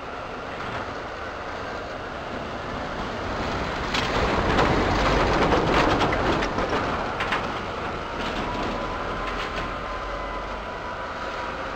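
A diesel locomotive hauls freight wagons slowly past, its engine running, while the wheels click over the rail joints. The sound swells about four seconds in and carries a faint drifting wheel squeal.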